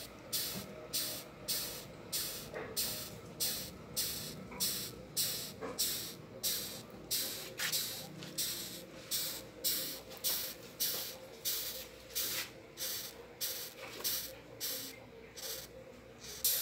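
Rhinoceros beetle stridulating: a rhythmic, scratchy hiss, about two strokes a second, that sounds like someone sweeping with a broom.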